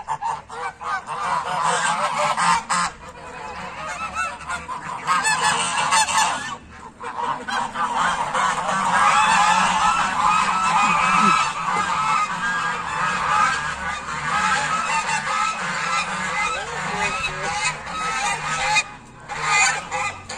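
A large flock of domestic geese honking, many calls overlapping into a continuous clamour that thickens in the middle.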